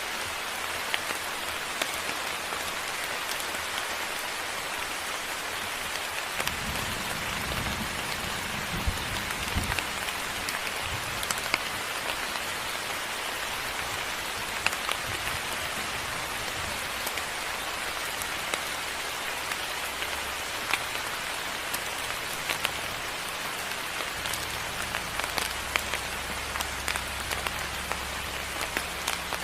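Moderate rain falling steadily, with many sharp drop ticks over an even hiss. A low rumble joins it from about six seconds in for a few seconds, and again from about 24 seconds in.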